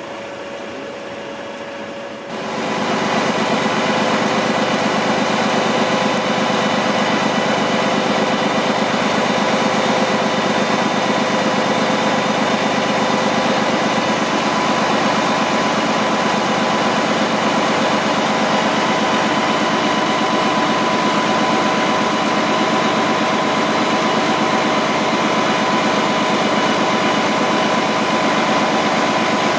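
Diesel engine of a Mercedes-Benz truck speeding up about two seconds in to drive its loading crane, then running steadily under load with a steady hydraulic whine while the crane lifts and swings a miniature steam locomotive.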